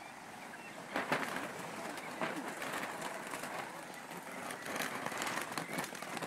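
Pen-raised northern bobwhite quail giving many short, low calls, with a few sharp taps scattered through.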